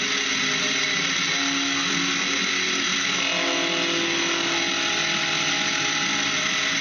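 Benchtop milling machine running, its motor and spindle whining steadily as the cutter mills the work while the table is cranked by hand. The cutting note changes pitch about three seconds in.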